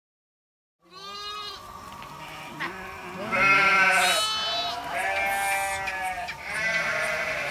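A large herd of goats bleating, many calls overlapping one another. The calls start after about a second of silence and grow louder from about three seconds in.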